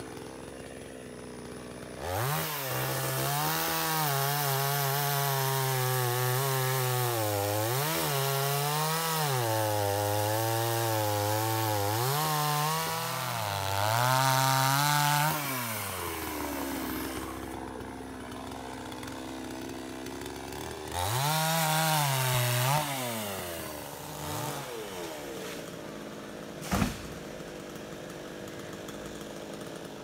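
Two-stroke petrol chainsaw cutting through a felled log at full throttle, its engine pitch sagging several times as the chain bogs in the wood, then dropping back to idle about halfway through. It revs up again briefly about two-thirds of the way in, and a single sharp knock sounds near the end.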